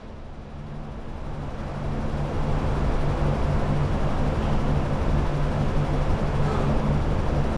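Steady vehicle running noise: a low, even hum under a wide rush of noise, fading in over the first couple of seconds and cutting off abruptly at the end.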